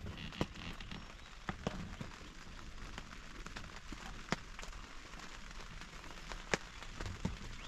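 Steady rainfall, with single heavy drops striking close by as sharp, irregular taps.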